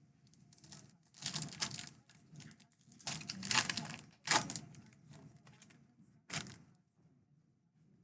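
A basketball trading card pack's wrapper being torn open and crinkled, with the cards handled, in several short bursts; the loudest come about a second in, around three to four seconds in, and once more near six seconds.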